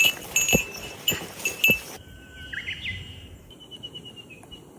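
A small bell jingles with each footstep, a few strikes a second, each ringing at the same high pitch. About two seconds in, this cuts off sharply to quieter forest ambience, where a bird sings thin, high whistled and gliding notes.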